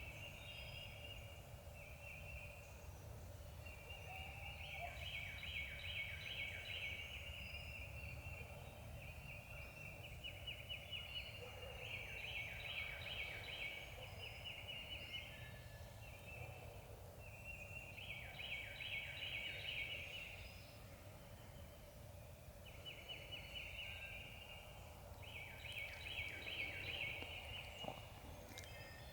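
Wild turkey gobbling over and over, a rattling call every few seconds.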